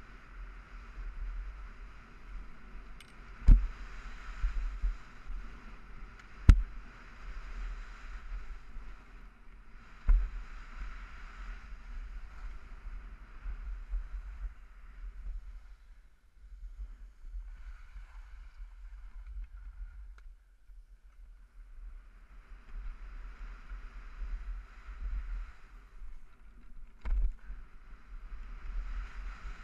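Skis sliding and scraping over packed snow on a downhill run, a steady hiss that fades for a few seconds in the middle and then picks up again, with wind rumbling on a helmet-mounted action camera. Four sharp knocks stand out, the loudest about three and six seconds in.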